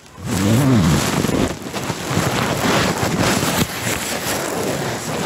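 Loud, continuous rustling and rubbing of fabric, like clothing or bedding scraping against a body-worn microphone, starting abruptly. About half a second in, a short voice-like hum rises and falls.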